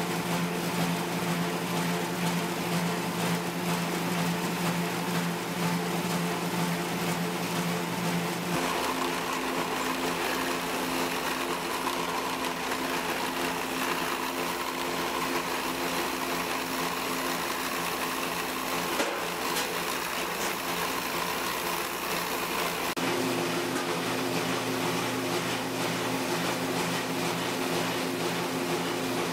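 Electric dough mixer running steadily, a constant mechanical hum as it churns flour into crumbly noodle dough; the tone of the hum changes abruptly twice.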